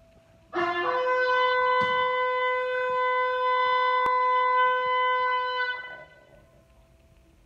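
A chow chow dog howling: one long, steady howl that starts about half a second in and fades out after about five seconds.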